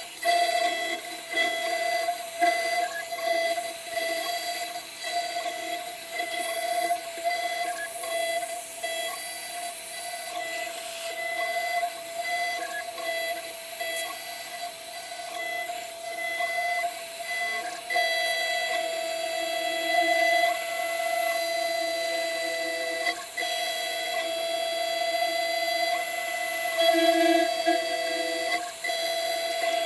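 CNC 6040 router's spindle whining steadily while its end mill cuts aluminium plate. The cutting noise rises and falls as the tool moves through the cut, and its tone shifts a few times, most clearly about two-thirds of the way through.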